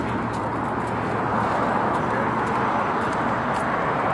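Steady noise of city street traffic.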